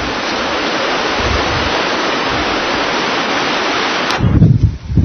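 A steady, loud hiss of noise, rising slightly, cuts off abruptly about four seconds in. Gusts of wind rumbling on the microphone take over.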